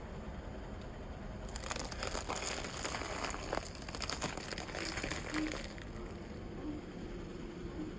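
Objects crumpling and crackling as they are crushed under a car's tyre: a dense run of snaps and crinkles from about a second and a half in until nearly six seconds, over a low steady rumble.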